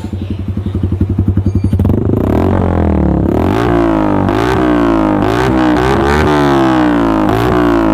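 Motorcycle engine breathing through an aftermarket SC Project-style slip-on exhaust: it idles with an even pulsing beat, then from about two seconds in it is revved up and down repeatedly in quick throttle blips.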